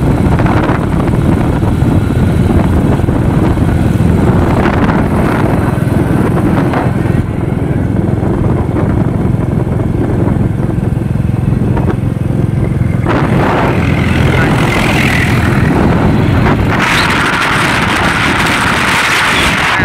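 Royal Enfield Classic 350's single-cylinder engine running steadily as the motorcycle cruises along the road, mixed with wind rush on the microphone. The hiss of the wind grows louder in the last few seconds.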